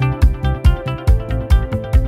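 Intro music with a fast, steady beat, about four beats a second, under sustained melodic notes.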